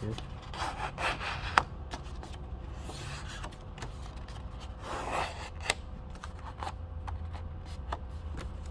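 A sheet of paper being handled and rubbed along a fold, giving several short rustling strokes, with a few sharp taps on the desk, the loudest about a second and a half in.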